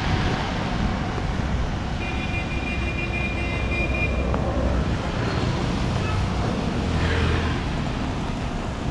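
City street traffic on wet roads, a steady wash of engine and tyre noise. A steady high tone sounds for about two seconds early on, and a vehicle's engine rumble swells near the end.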